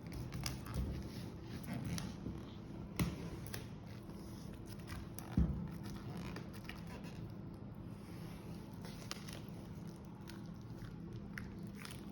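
Hands handling and unwrapping an album's packaging: scattered small clicks, rustles and scrapes, with a sharp knock about three seconds in and a low thump a little after five seconds, over a steady low hum.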